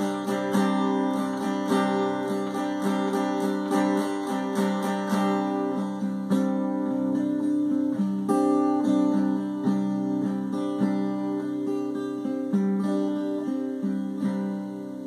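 Acoustic guitar strummed in a steady rhythm with no voice, the strums becoming sparser and the chords ringing out more quietly toward the end.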